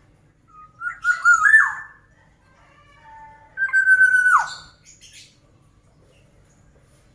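Black-naped oriole (kepodang) singing: a fluty whistled phrase about a second in, a softer whistle near three seconds, and a held whistle about four seconds in that ends in a sharp downward slur.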